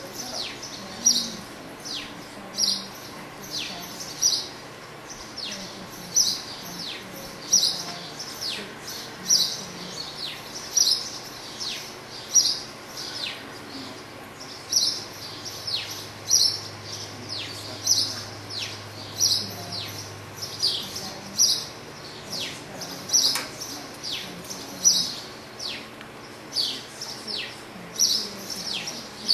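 A small bird chirping over and over, short high chirps that drop quickly in pitch, about one or two a second.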